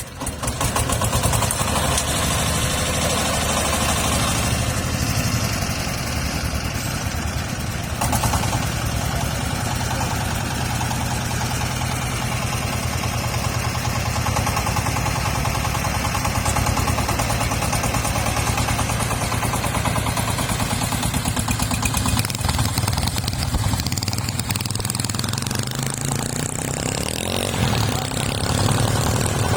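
Engine of a rice-threshing machine running steadily and loudly, with a brief swell in level about eight seconds in.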